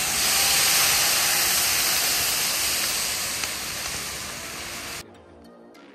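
Loud sizzling hiss from a plov cauldron, slowly dying down, then cut off abruptly about five seconds in.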